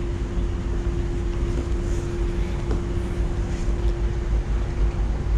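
Low rumble of wind on the camera microphone, under a steady mid-pitched hum.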